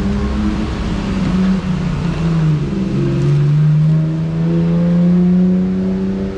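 A motor vehicle's engine running close by on the road, its pitch wavering at first, then holding and rising slowly over the last few seconds, over a low rumble.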